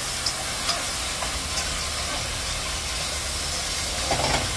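Beef stir-frying with soy sauce in a hot skillet, sizzling and hissing steadily as it is tossed with chopsticks, with a few light clicks of the chopsticks on the pan and a short louder knock near the end.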